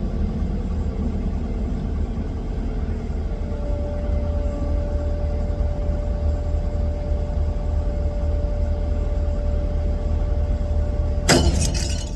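Heavy diesel engine running steadily with a low rumble, a thin steady whine joining about a third of the way in. A short sharp clatter sounds near the end.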